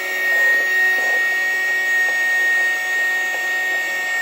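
Battery-powered mini Henry desk vacuum running, its small motor giving a steady high-pitched whine.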